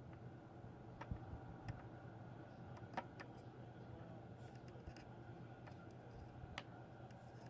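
Faint, sparse clicks and taps of small tools working on the controller's circuit board during soldering, a few isolated ones with the loudest about three seconds in, over a low steady hum.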